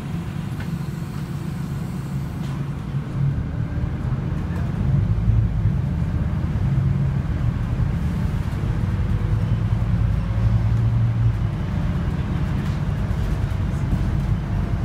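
Scania Citywide LFA articulated city bus heard from inside its passenger cabin while moving: a steady low engine and drivetrain rumble mixed with road noise. It gets louder about five seconds in, with a faint rising whine.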